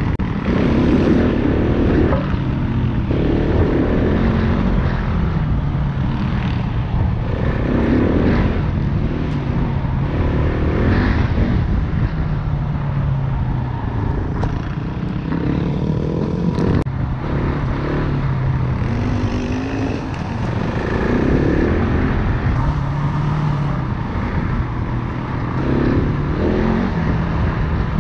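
Single-cylinder four-stroke dirt bike engine running under way on a trail ride, its pitch rising and falling repeatedly with throttle and gear changes.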